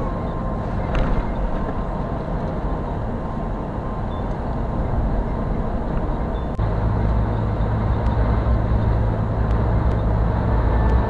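Road and engine noise of a car driving along a winding highway, heard from inside the car. About two-thirds of the way in it abruptly becomes louder, with a deeper drone.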